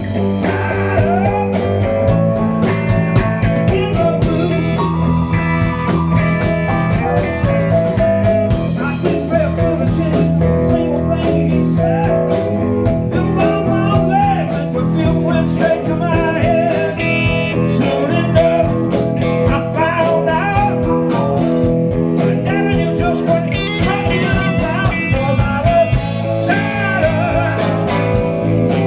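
Live blues band playing: electric guitar over bass guitar, drums and keyboard.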